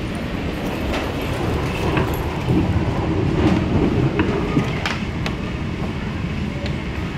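Running noise inside an MTR K-Train electric multiple unit travelling at speed: a steady rumble of wheels on rail, swelling louder for a couple of seconds in the middle, with a few sharp clicks.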